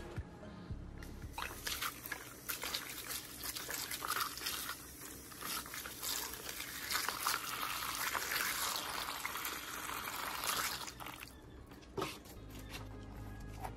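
A stream of water pouring into a plastic tub, splashing over the bicycle pump's plastic and metal parts; it stops about eleven seconds in.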